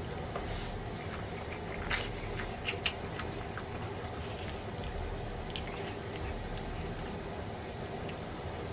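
A man chewing a mouthful of ramen noodles close to the microphone, with wet mouth sounds and a few sharp clicks about two to three seconds in, over a steady low hum.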